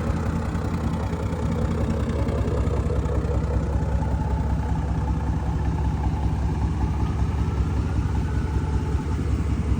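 Exhaust of a 5.7-litre HEMI V8 in a Jeep Grand Cherokee, running steadily at an even, idle-like speed. The owner says the engine sounds like an SRT.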